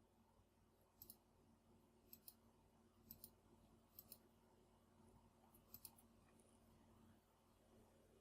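Faint small clicks, mostly in close pairs, about once a second, from handling the Corsair K70 RGB Rapidfire keyboard, over a faint steady low hum.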